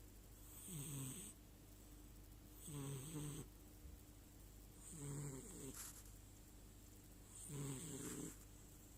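Domestic cat snoring: four snores, one about every two and a half seconds.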